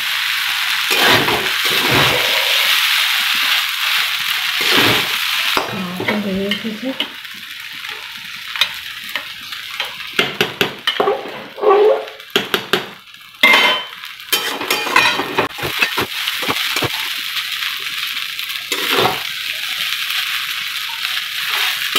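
Chow mein noodles sizzling in oil in a kadai while being stirred and tossed with a metal spatula. Partway through, the sizzle drops back and sharp metal clinks and scrapes of the spatula and pots take over, then the sizzling and stirring return.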